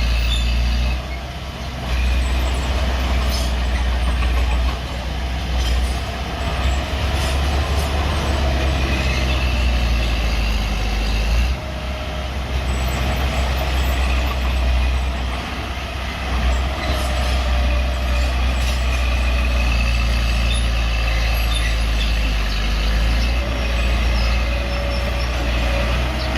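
Bulldozer working, its diesel engine running steadily with a deep low drone and a wavering higher whine over it, the level dipping briefly a couple of times.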